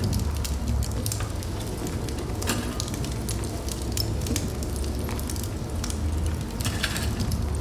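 Wood fire burning in a fireplace: a steady low rumble of flame with irregular sharp crackles and pops from the burning logs.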